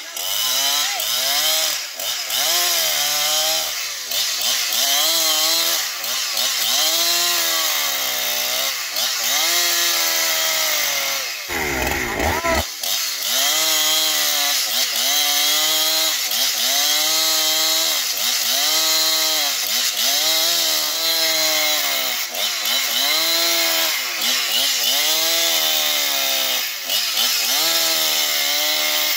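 Husqvarna chainsaw cutting through a large log under load, its engine pitch dipping and recovering about once a second. Near the middle it gives one brief rising rev.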